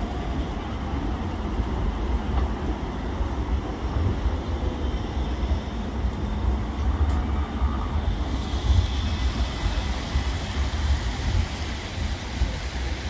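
CAF Urbos A35 low-floor tram passing close and rolling away along the track, a steady rumbling running noise with a strong low rumble underneath.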